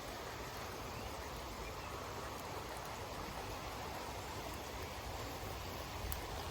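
Steady rushing of a flowing stream, an even water noise with no distinct events.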